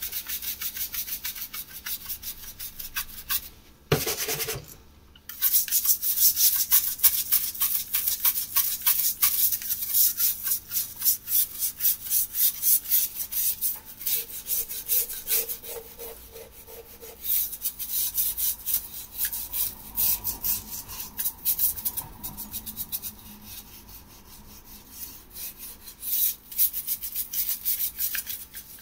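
Brush scrubbing tile grout in quick, repeated back-and-forth strokes, working off the top discoloured layer. Strokes break off briefly about four seconds in, with one sharp knock, then resume.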